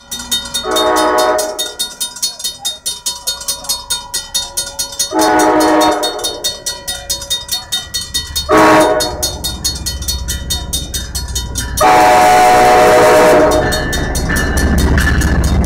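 Locomotive horn of an approaching MBTA commuter train sounding the grade-crossing signal: two long blasts, a short one, then a final long one. Underneath is the steady rapid dinging of the crossing's warning bells. Near the end the locomotive rumbles into the crossing.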